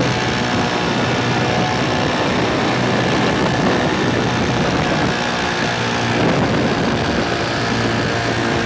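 Paramotor engine and propeller running steadily in flight, heard from the aircraft itself.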